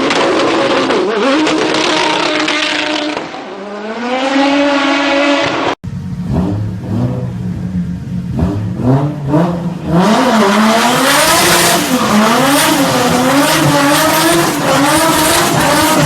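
Tuned turbocharged car engines revving, in two separate clips: the first runs steadily, then its pitch climbs; after an abrupt cut the second blips up and down quickly, with a high thin whistle over it in the second half.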